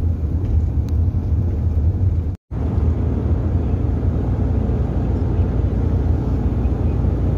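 Steady low rumble of engine and road noise heard inside the cabin of a moving Nissan van. The sound cuts out for a split second about two and a half seconds in.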